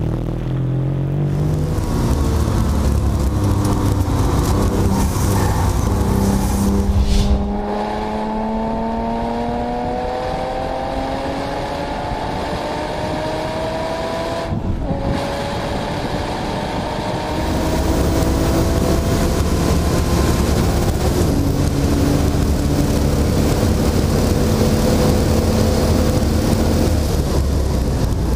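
Porsche 911 Turbo with a GT2 RS kit and Supersprint exhaust, its twin-turbo flat-six pulling hard on track. The engine note climbs in pitch over several seconds at a time, broken by upshifts, with a brief cut in the sound about 15 seconds in.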